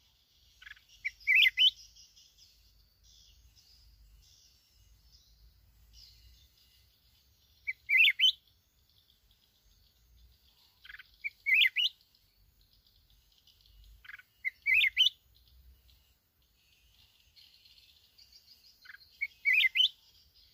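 Red-whiskered bulbul singing five short, loud warbled phrases a few seconds apart, with fainter high twittering between them.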